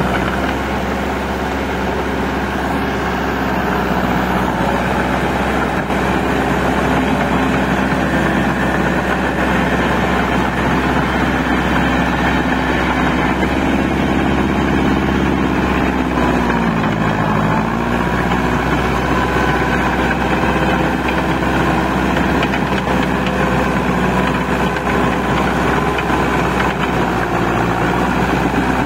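Massey Ferguson 185 tractor fitted with paddy tracks, its four-cylinder diesel engine running steadily as it drags a levelling board through flooded paddy mud. About 16 seconds in, the engine note sags briefly, then picks up again.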